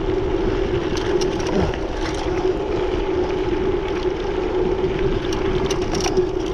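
Mountain bike rolling along a dirt trail: wind buffeting the handlebar-mounted camera's microphone over tyre noise on the dirt, with scattered clicks and rattles from the bike.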